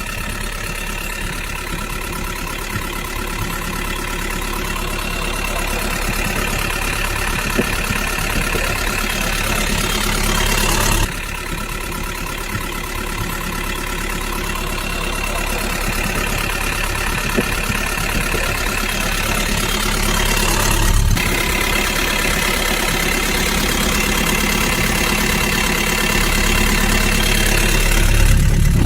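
Small engine of a homemade mini tractor running steadily. Its sound shifts abruptly twice, about a third and two thirds of the way through.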